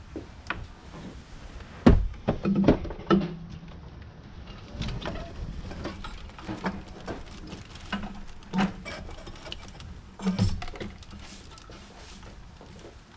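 Knocks and clunks of a Duramax diesel cylinder head being lowered into the engine bay and set onto the block, loudest about two seconds in, with a cluster up to about three seconds and another heavy knock a little past ten seconds.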